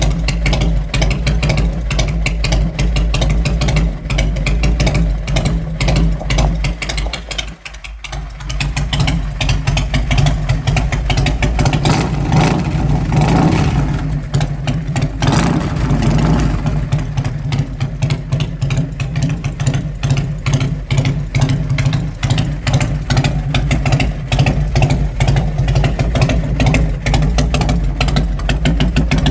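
Engine running loudly with rapid, even firing pulses. It drops away briefly about eight seconds in, then is revved up and back down around the middle before settling back to a steady run.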